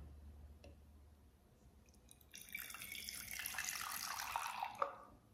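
Liquid poured from a stainless-steel carafe into a glass tumbler, a steady pouring stream lasting about two and a half seconds, starting a little over two seconds in and stopping just before the end.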